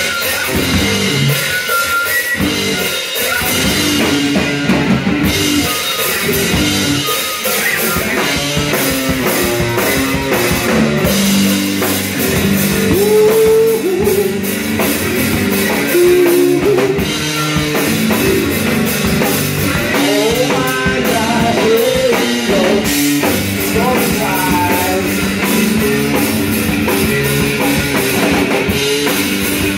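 Live punk rock band playing: drum kit and electric guitar. A singer's voice comes in over the band in the middle stretch.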